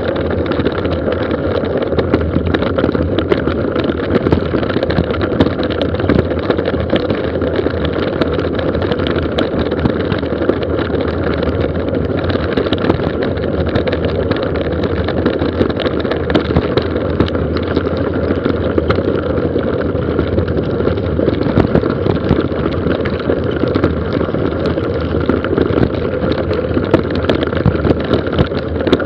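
Mountain bike descending a gravel forest road at speed: a steady rush of tyres on loose stones and wind on the microphone, with the bike and camera rattling and knocking over the rough surface.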